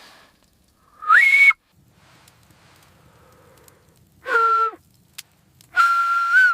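Three short whistle-like notes, the first rising sharply in pitch and the last held steady.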